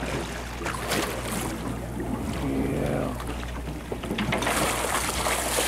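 Boat engine running with a steady low hum under water sloshing against the hull, with a few sharp splashes about a second in. A louder rush of splashing near the end, as a hooked fish is brought up alongside the hull.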